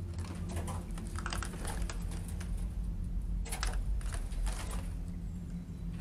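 Irregular light clicks, taps and knocks of clutter being handled and shifted, over a steady low hum.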